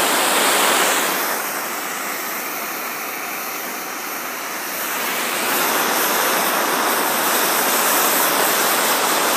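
Propane torch flame hissing steadily as it is played on a lump of lead to melt it. The hiss drops quieter about a second in and comes back up a few seconds later.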